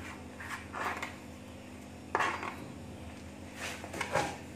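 Hand brushing and tapping on a wooden chopping board, with light taps and one sharper knock about two seconds in, then a couple of soft knocks near the end.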